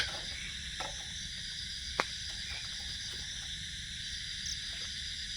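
Steady high-pitched chorus of night insects such as crickets, with two sharp clicks, one right at the start and one about two seconds in.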